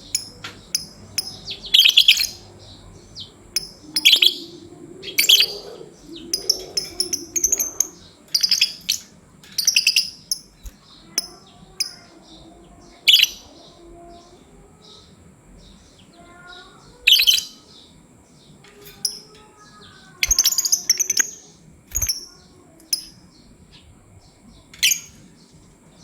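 Lovebirds giving short, shrill high-pitched chirps in irregular clusters, a burst every second or two.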